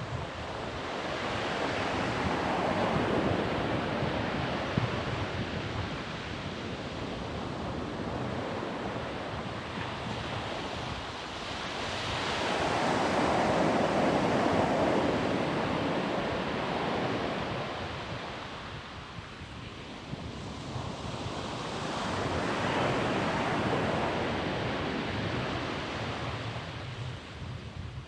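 Surf breaking on a sandy beach, a steady wash that swells three times as waves come in and ebbs between them, with wind buffeting the microphone.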